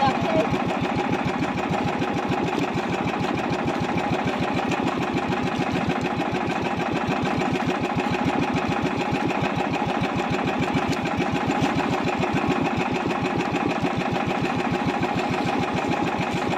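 Small outrigger fishing boat's engine running steadily with a fast, even putter.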